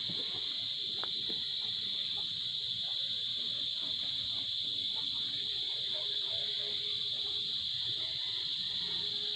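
Steady, high-pitched insect chorus that drones on without a break.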